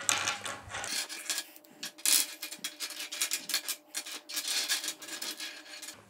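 Loose plastic Rubik's cube edge and corner pieces clicking and clattering against each other and the tabletop as they are pushed and sorted into piles: irregular light clicks with some scraping.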